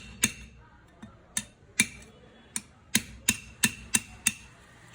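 Hammer tapping on the metal of a jet pump to free a broken pipe: a series of sharp, ringing metallic taps, spaced unevenly at first and then coming about three a second.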